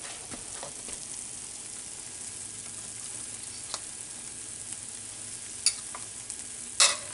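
A steady low sizzling hiss with a few light clicks of a ceramic bowl against a plate, then a louder clatter near the end as salad is tipped out of the bowl onto the plate.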